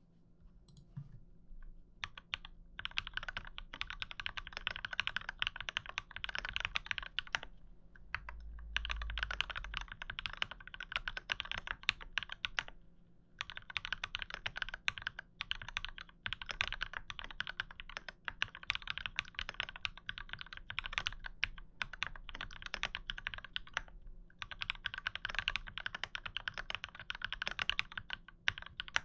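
Typing on a KMG TKL mechanical keyboard with linear switches (MX Black housings fitted with Kailh Red stems) on a sandblasted aluminium plate: rapid keystrokes in runs of several seconds, with short pauses between runs.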